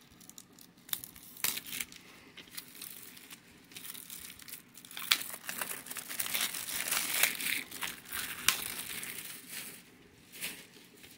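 Clear plastic shrink wrap being picked at, torn and peeled off a DVD case: crinkling and crackling with sharp snaps, busiest in the middle of the stretch.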